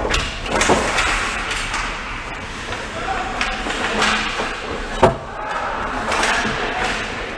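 Ice hockey play close to the goal: skates scraping and carving on the ice, with sharp cracks of sticks and puck, the loudest crack about five seconds in. Players' indistinct shouts.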